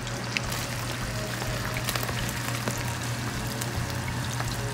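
Chopped onion going into hot oil in a frying pan and sizzling steadily, with light scattered clicks of a wooden spoon scraping it off a plastic cutting board against the pan.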